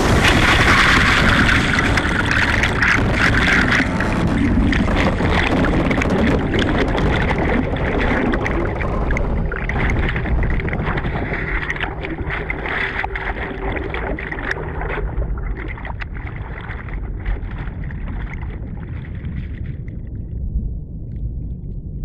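Sea water and spray rushing around a camera, dense and crackling with many small splashes over a steady low rumble. The hiss gradually thins out over the second half, leaving mostly the rumble.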